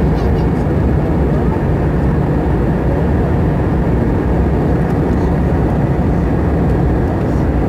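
Steady engine roar and rushing airflow of an Airbus A320 in flight, heard inside the passenger cabin from a window seat; a constant, deep noise that stays even throughout.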